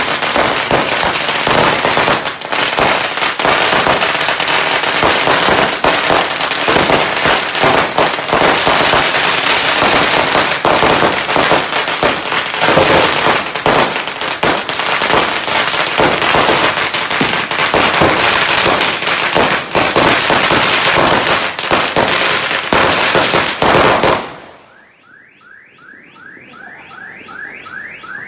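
A long string of firecrackers going off in a dense, unbroken crackle of bangs that stops suddenly about 24 seconds in. Just after, an electronic alarm starts a fast run of rising chirps, about four a second.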